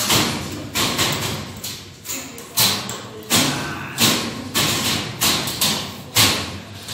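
Repeated sharp knocks on the steel ceiling furring overhead, about a dozen irregular blows roughly half a second apart, each dying away with a short ring.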